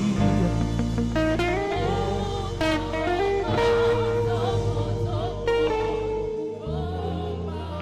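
Live gospel worship music from a band: held melody notes, likely the saxophone, over a steady bass line and chords.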